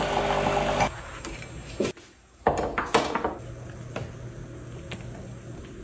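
Kitchen clatter of dishes and utensils, with a few sharp knocks and clinks around two to three seconds in, over a steady low hum.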